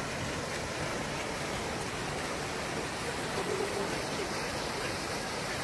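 Fountain jet splashing down into its basin: a steady rush of falling water.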